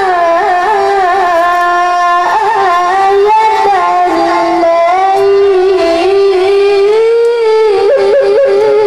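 A boy qori reciting the Qur'an in melodic tilawah style into a microphone, holding long notes with wavering ornaments and slides between pitches.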